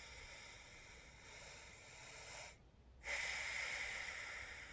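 A man breathing faintly near the microphone: a soft breath, a short gap, then a louder, longer breath about three seconds in that fades away.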